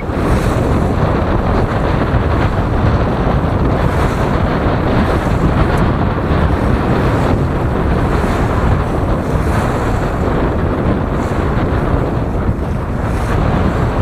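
Wind buffeting the microphone over the rush of water along the hull of a sailing yacht driving through the chop under sail in strong, gusty wind. The noise is loud and continuous.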